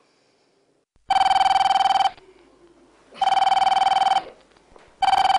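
Corded landline telephone ringing: three rings about a second long and about a second apart, each a steady electronic tone with a fast warble, the third starting near the end.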